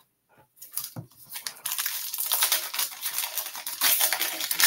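A trading card pack's shiny wrapper crinkling as it is torn open by hand. A moment of silence first, then steady crinkling from about a second and a half in.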